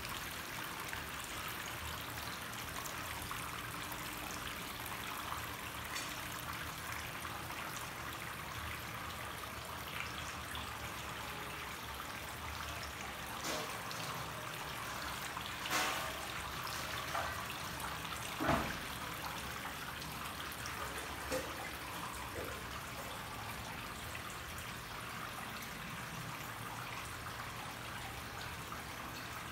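Steady trickling of water from a small decorative tabletop fountain, with a few brief knocks past the middle.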